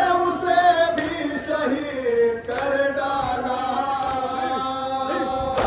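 Nauha, a Shia mourning lament for Hussain, chanted by male reciters in long held notes.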